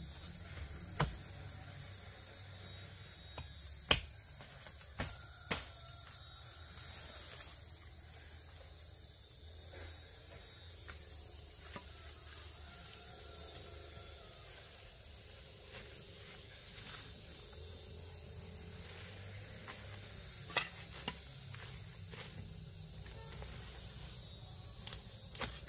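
Insects chirring in a steady high-pitched drone. A few sharp clicks or snaps break in over it, the loudest about four seconds in.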